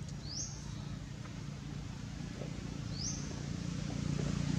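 Two short, high chirps, each sweeping upward in pitch, about three seconds apart, over a low steady rumble that grows louder near the end.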